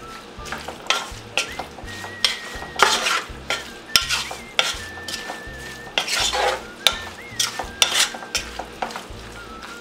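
Wooden spoon stirring raw catfish pieces with sugar, garlic and green onion in a metal pot, with irregular scrapes and knocks of the spoon against the pot. The burner is off, so the food is only being mixed cold, not frying.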